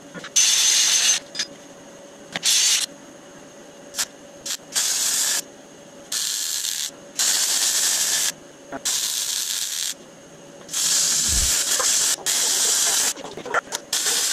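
A wire-feed welder arcing on steel tube in a string of short welds. It makes about ten bursts of steady hiss, each from under a second to just over a second long, with brief pauses between.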